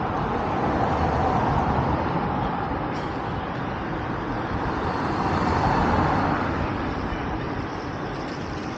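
Road traffic on a busy city street: a steady wash of passing cars and buses. It swells as vehicles go by about a second in and again around six seconds in.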